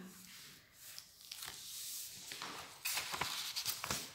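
Paper rustling and crinkling as sheets of an exam paper and a notebook are handled. It is faint at first, then a string of small clicks and rustles starts about three seconds in.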